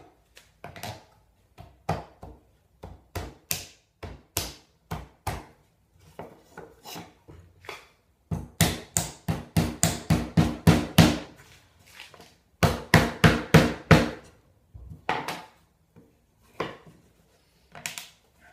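Mallet tapping the dovetail joints of a wooden drawer together for a dry fit. Scattered single knocks, then a fast run of blows about halfway through and a second run shortly after.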